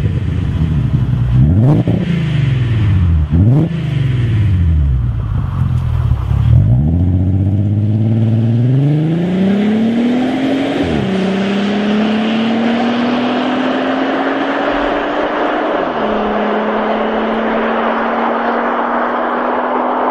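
Skoda Superb estate with an aftermarket Gestec quad-tip exhaust: the engine is blipped twice, then the car pulls away and accelerates hard. The exhaust note rises steadily, dropping back at two gear changes partway through before climbing again.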